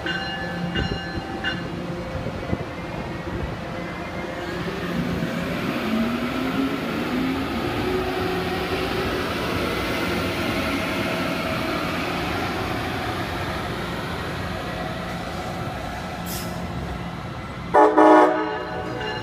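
Amtrak Siemens ACS-64 electric locomotive pulling a Northeast Regional train along the platform and away, with a rising whine and the steady rumble of the cars rolling past. The horn gives a short blast near the end.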